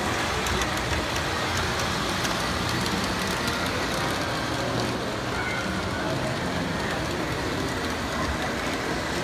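Model trains running on the layout's track: a steady rolling rumble and rattle of wheels on rail, with a few light clicks in the first couple of seconds.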